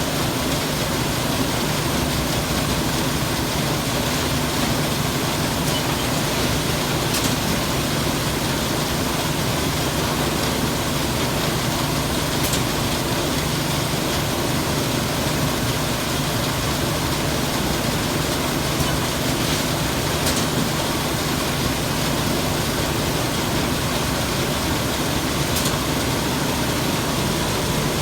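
Semi-automatic packaging machine running: a steady mechanical hum under an even hiss, with a few faint clicks spread several seconds apart.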